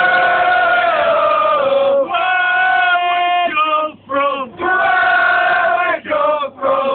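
A group of rugby league fans singing a chant together in unison, loud, with long held notes in phrases broken by short pauses for breath.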